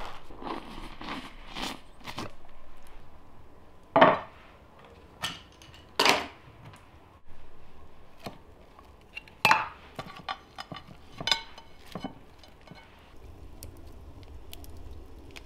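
A steel pineapple corer being twisted through a pineapple, with a series of sharp knocks and clinks from the metal tool and a clay dish. The loudest knocks come about 4, 6 and 9.5 seconds in, some with a short ring.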